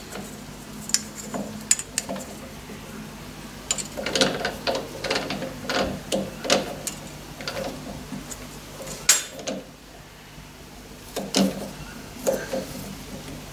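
Chuck key turning the jaws of a lathe's four-jaw chuck: irregular metallic clicks and clunks as the jaws are tightened onto the workpiece and the chuck is turned by hand.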